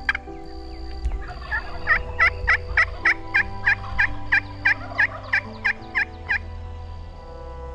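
Wild turkey yelping: a run of about fifteen sharp, evenly spaced yelps, about three a second, starting about two seconds in and stopping shortly after six seconds. Soft background music plays underneath.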